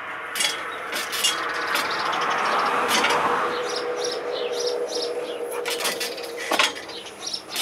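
A dog jumping at and hanging from a springpole, with scattered knocks and rattles from the pole rig. Under them a vehicle passes, swelling to its loudest about three seconds in and then fading, with a steady hum that stops near the end.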